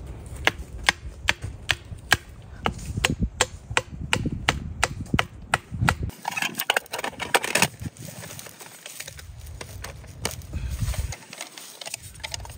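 Sharp wooden chopping knocks, about three a second, as a stick is split against a log for kindling. About halfway the knocking stops and a short burst of crackling hiss follows, with a few scattered knocks.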